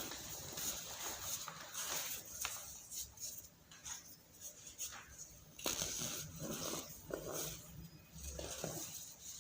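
Chunks of compressed powder being squeezed and crumbled by hand, giving a run of irregular squeaky crunches. The crunches are denser and louder in the second half.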